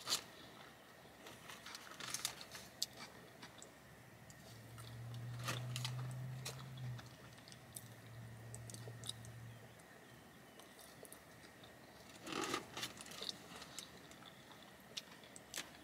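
A person chewing food close to the microphone: quiet wet chewing with scattered soft crunches and mouth clicks. A low steady hum runs for a few seconds in the middle.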